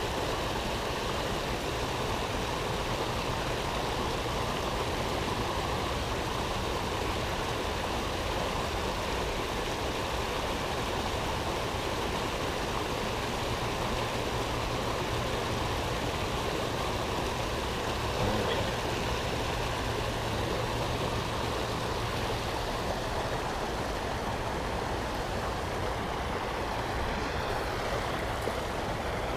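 Steady rushing of a waterfall, an even noise that holds at one level throughout.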